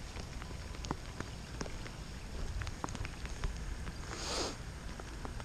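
Light rain: scattered drops ticking close by over a low rumble, with one short hiss about four seconds in.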